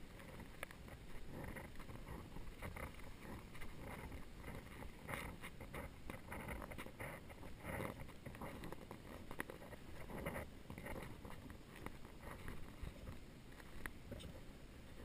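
Footsteps scuffing through soft, dry sand in a loose walking rhythm, a soft crunch roughly every second, over a low steady background hiss.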